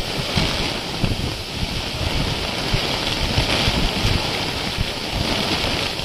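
A downpour and strong gusting wind in a storm, with the wind buffeting the microphone in low, uneven rumbles.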